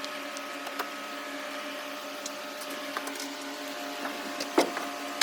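A steady machine hum at one unchanging pitch, with a few light clicks and knocks, one a little louder about four and a half seconds in.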